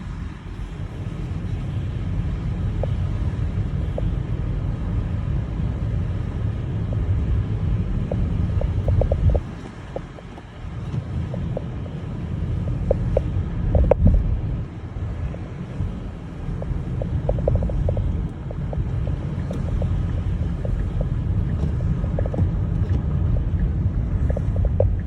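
Car driving on a snowy road: a steady low rumble of road and engine that eases for a moment about ten seconds in, with faint scattered ticks over it.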